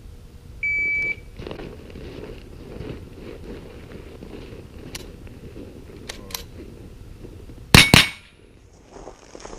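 Shot timer's start beep, one steady high tone lasting about half a second, sounding just after "stand by". About seven seconds later come two loud rifle shots in quick succession.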